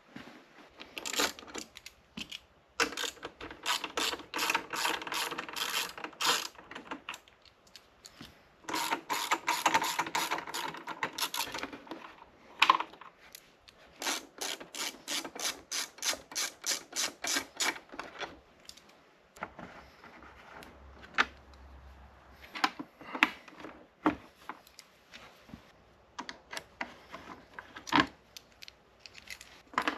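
Ratchet wrench clicking in quick runs of strokes, about five clicks a second, three runs in all, followed by scattered single clicks and knocks of tools.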